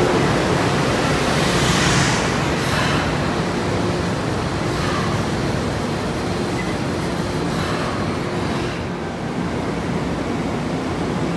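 Long Island Rail Road M3 electric multiple-unit train rolling past a platform: a steady rumble of wheels on rail with a low motor hum, easing slightly about nine seconds in.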